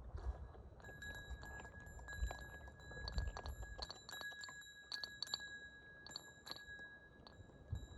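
Many light, sharp metallic clicks and clinks over a steady high-pitched ringing tone that starts about a second in.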